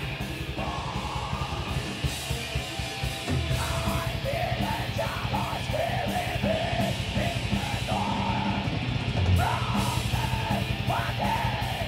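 Heavy metal band playing live: distorted guitars and rapid drumming, with harsh yelled vocals coming in about half a second in and returning in long held lines.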